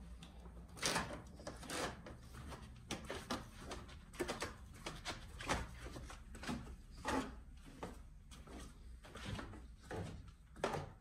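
Footsteps going down a wooden staircase: irregular knocks, about one a second.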